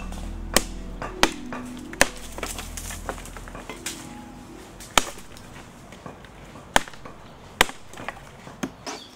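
Machete chopping into a felled tree trunk: sharp strikes every second or two, with background music that fades out about halfway.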